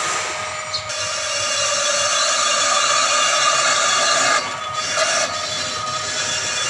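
On-car brake lathe spinning a front brake disc while its cutting tool skims the disc face: a steady metallic hiss and whine that dips briefly about four and a half seconds in. The disc is being resurfaced because it is warped, the cause of a pulsating brake pedal.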